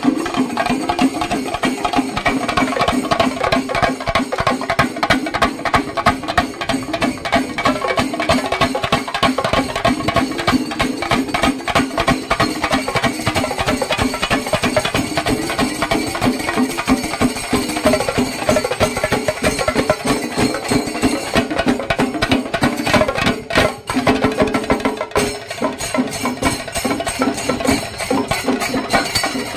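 Shinkari melam: a group of chenda drums beaten in a fast, dense rhythm, with ilathalam cymbals. The drumming thins briefly about three-quarters of the way through, then carries on.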